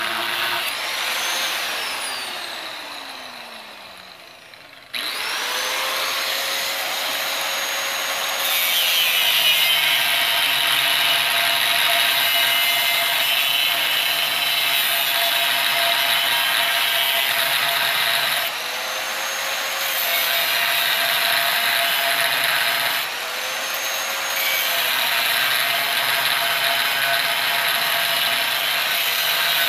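A power tool cutting into an oxygen tank. The motor winds down over the first few seconds, starts again suddenly about five seconds in, and from about eight seconds runs under load with a harsh cutting noise. Twice it briefly comes off the cut and its pitch rises.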